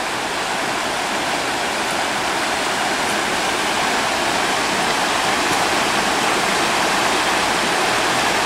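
Shallow mountain river rushing over rocks in rapids: a steady, even wash of water.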